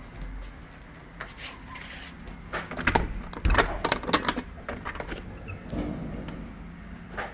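A run of sharp knocks and clatters, densest from about two and a half to four and a half seconds in, over a steady low hum.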